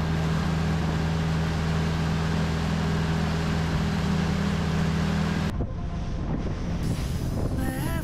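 Motorboat engine running steadily under way, over a steady rush of wind. It cuts off abruptly about five and a half seconds in, and music starts near the end.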